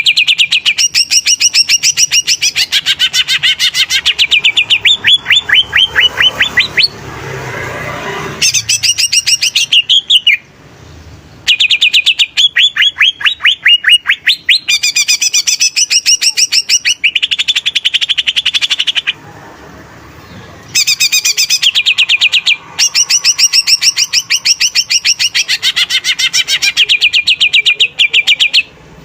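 Green leafbird (cucak ijo) singing in long, fast chattering phrases of rapidly repeated high notes, broken by a few short pauses.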